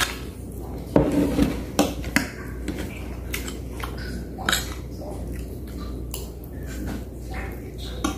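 Metal spoon and fork clinking and scraping against plates while noodles are served and eaten. There are several sharp clinks, the loudest about a second in, over a steady low hum.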